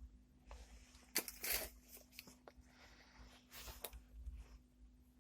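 Faint rustling and handling noises, with a few short scrapes about a second in and again a little past halfway, as parts are moved about by hand.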